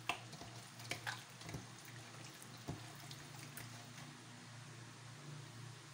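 Hand squishing and kneading thin beef slices in a wet egg-and-flour marinade in a bowl: faint wet squelching, with a few sharp clicks against the bowl in the first three seconds.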